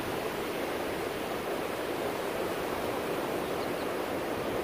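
Surf breaking on a beach: a steady, even wash of noise with no single wave standing out.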